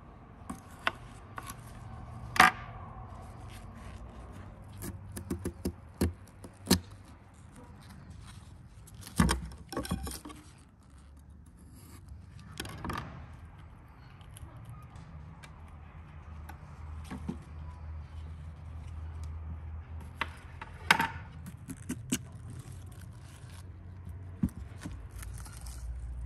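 Knife cutting into raw potatoes on a tabletop: a series of short knocks, clicks and scrapes as the blade and the rose cuttings are handled, over a faint low rumble.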